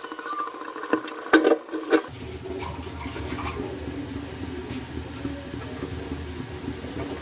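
A few clanks of kitchen utensils, then a steady rushing sound of liquid.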